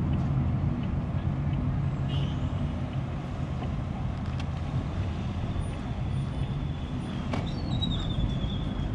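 Car engine and road noise heard from inside the cabin while driving in city traffic, a steady low drone. Near the end a thin, high squeal comes in and falls slightly in pitch.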